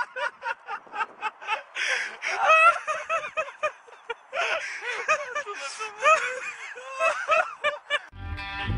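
A person laughing hard in quick, high-pitched bursts with gasping breaths between them. Electric-guitar music comes in just before the end.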